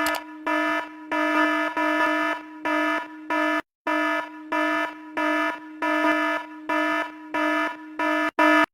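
Electronic alarm-like beeping at one steady pitch, repeating about one and a half times a second, then cutting off suddenly.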